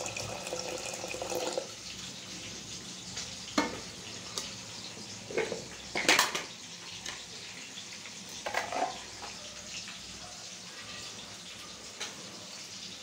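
Water pouring into a pressure cooker pot of soaked chickpeas, a steady hiss that is strongest in the first second and a half, with a few short knocks against the pot, the loudest about six seconds in.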